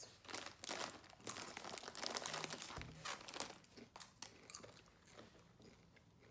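Doritos tortilla chips crunching as they are bitten and chewed, with the crinkle of the foil chip bag being handled near the start. The crunches come thick at first and thin out toward the end.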